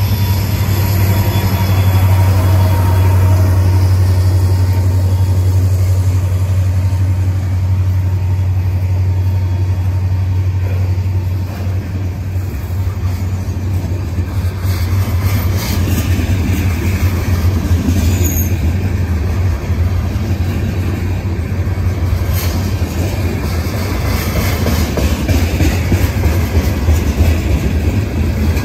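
Illinois Central EMD SD70 diesel locomotives passing close by with a deep, steady engine drone, giving way after about ten seconds to freight cars rolling past, their wheels clicking and clattering over the rails.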